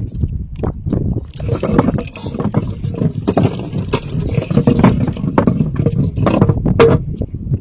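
Water slapping and sloshing against a small wooden boat's hull, with scattered knocks, over a steady low rumble.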